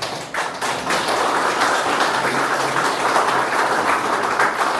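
Audience applauding: many people clapping, starting suddenly and thinning out near the end.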